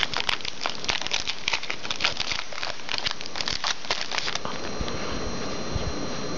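Rapid crinkling and rustling of packaging as a trading card pack is opened and the cards handled, stopping about four seconds in.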